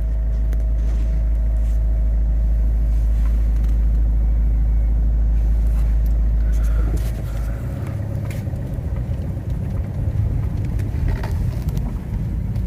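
A car running with a steady low rumble, which drops off sharply about seven seconds in and gives way to a rougher, quieter rumble.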